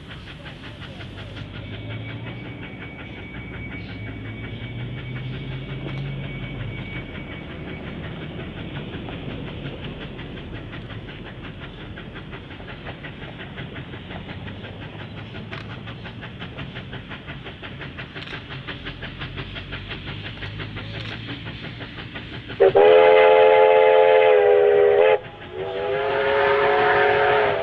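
A Victorian Railways steam locomotive approaching, its exhaust a fast, even chuffing. About 23 seconds in, a multi-tone steam whistle sounds loudly for about two and a half seconds. It stops abruptly and sounds again a second later, its pitch bending slightly.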